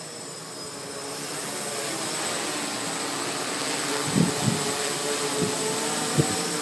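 Hexacopter's six electric motors and propellers whining steadily, getting louder over the first couple of seconds as it comes overhead. From about four seconds in, a few short low thumps of wind buffeting the microphone.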